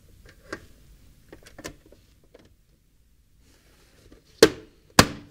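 Cover of a Banner WLB72 LED light fixture being fitted onto its housing: a few faint taps at first, then two loud sharp snaps about half a second apart near the end as it is pressed into place.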